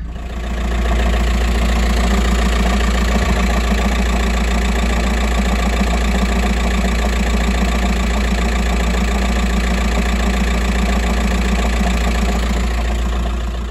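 VW T5 van's engine idling steadily, with a low rumble that the owner puts down to a noisy, worn dual-mass flywheel.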